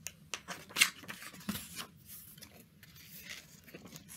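A page of a picture book being turned and the book handled: paper rustling and crinkling with a few sharp clicks, loudest about a second in.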